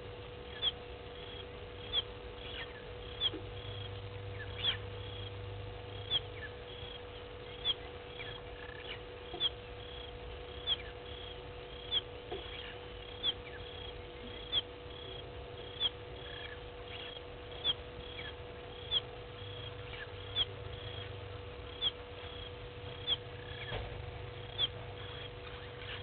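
A small animal's short, high call repeated evenly about every 1.3 seconds, over a steady low hum.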